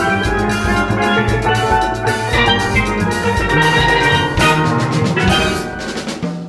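Steel band playing: steel pans ringing out melody and chords over a repeating low bass line, with drums keeping the beat.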